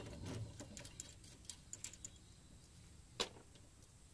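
Steel parts of a bearing separator puller kit clicking and clinking as it is handled on the wheel hub, with the pulled-off bearing collar still in it. A few light clicks come around the middle, and one sharper click about three seconds in.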